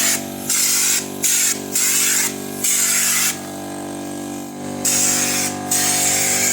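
Compressed-air spray gun spraying oil onto farm machinery in repeated hissing bursts, with a longer pause around the middle, over the steady hum of the air compressor.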